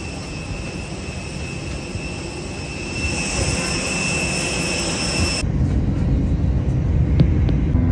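Airbus A321 jet engines running with a steady high whine over a rumble. About five seconds in, the sound changes abruptly to a louder, deeper rumble and the whine drops away.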